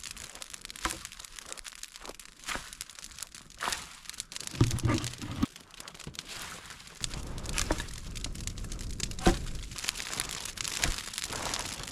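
Wood and brush crackling and snapping in irregular sharp cracks, as for building a fire, turning into a denser, steadier crackle from about seven seconds in.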